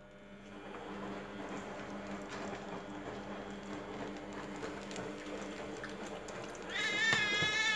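Soft rustling and small knocks as a Jack Russell terrier puppy noses about in a glass bowl on a wooden shelf, then near the end a cat's loud, drawn-out angry meow, wavering and dropping in pitch as it ends.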